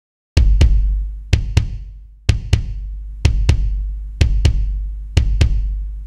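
Layered kick drum: a recorded kick blended with sampled kicks triggered from it, one of them a Korg Kick 11 sample pitched down about five semitones. It plays a beat of paired hits roughly once a second. The kick sounds nice and deep, with a long low boom under each pair.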